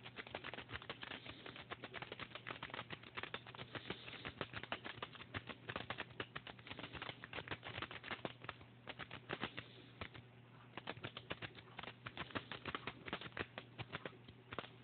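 A homemade triple-rake lock pick being scrubbed in and out of a padlock's keyway against a tension wrench. It makes a rapid, irregular stream of small metal clicks as it rattles over the lock's spool pins, easing off briefly about ten seconds in. The lock does not open.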